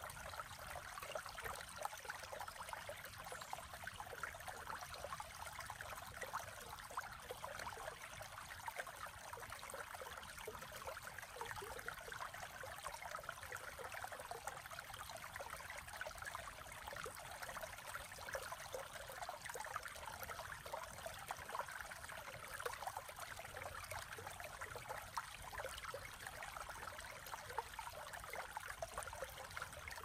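Creek water babbling and trickling steadily.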